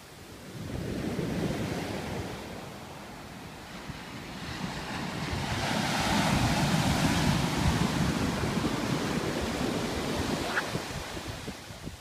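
Ocean surf: waves breaking and washing up a sandy beach, a smaller swell about a second in and a bigger, hissing wash building from about five seconds in and fading near the end. Wind buffets the microphone throughout.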